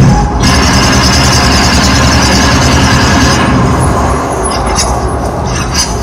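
Loud recorded battle sound effect played over loudspeakers: a dense rumbling din, with a rapid run of sharp cracks through the last couple of seconds.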